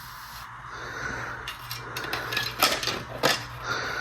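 A few sharp knocks and clatters of hard objects being handled, over a steady low hum.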